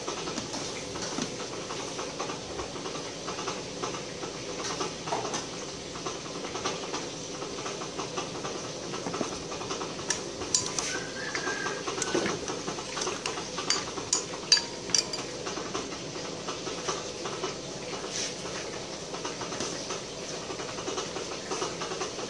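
Steady background hiss, with a handful of light clinks of a spoon and fingers against a glass blender jar in the middle, the loudest about halfway through, as chillies and garlic are handled in it.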